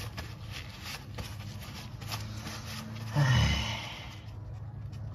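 Small scraping and clicking of hands working at an old crush washer stuck fast on an oil drain bolt, with a loud exhaled breath of effort about three seconds in.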